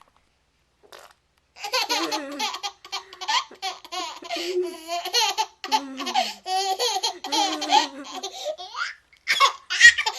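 Baby laughing in repeated high-pitched fits of giggles, starting about a second and a half in after a short silence.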